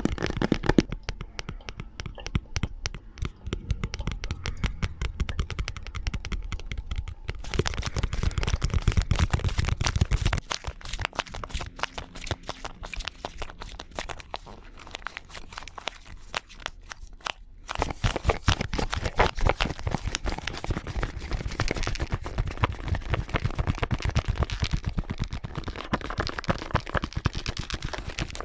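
ASMR tapping: rapid, dense taps and clicks on objects, several tapping sounds layered and fading into one another. The sound changes character abruptly about seven, ten and eighteen seconds in.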